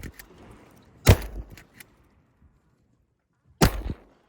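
Two shotgun shots about two and a half seconds apart, each with a short fading report over open water, fired at incoming ducks.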